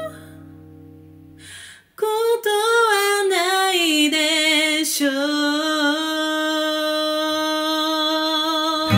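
After a near-quiet pause of about two seconds and a soft breath, a female voice sings a slow, held phrase with vibrato. A capoed steel-string acoustic guitar is played lightly beneath it.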